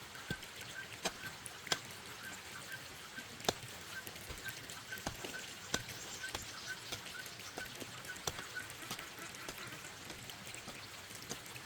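An animal's short, high calls repeated about three times a second, stopping a little before the end, over scattered sharp clicks and knocks.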